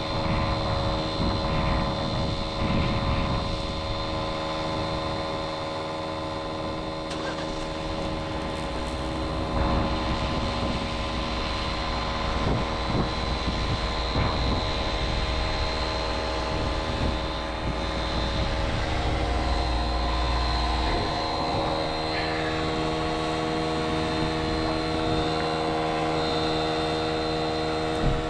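A vehicle engine running steadily, with a deeper rumble joining from about 8 seconds in until about 21 seconds in.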